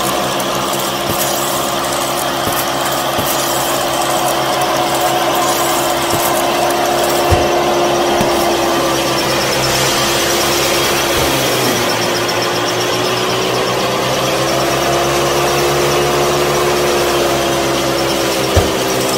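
Small electric motor running steadily with a high hum. Its pitch sags about eleven seconds in, then climbs back and wavers. A single sharp knock comes about seven seconds in and another near the end.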